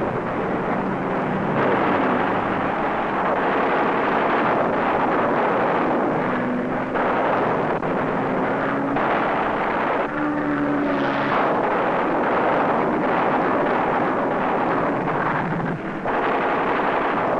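Aircraft engine noise on a film soundtrack: a dense, steady roar with a faint engine pitch that slides up and down at times.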